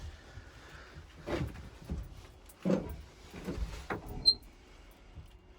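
A few irregular knocks and clunks of things being handled and set down, about five in a few seconds, the last one sharp with a brief high ring.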